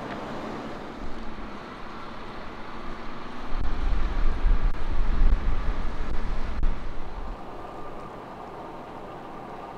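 Gusts of wind buffeting the microphone over a steady hiss of snowy street ambience, with a short low rumble about a second in and a stronger, uneven rumble from about three and a half seconds in that dies away after seven seconds.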